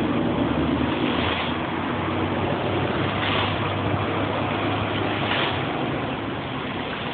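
Fountain jets splashing steadily into a shallow basin, with a brighter splash swelling about every two seconds over a low steady rumble.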